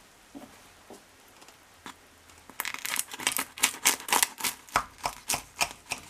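A knife sawing through the crisp baked crust of a layered pie, crunching in a quick series of crackling strokes from about two and a half seconds in, after a few faint clicks.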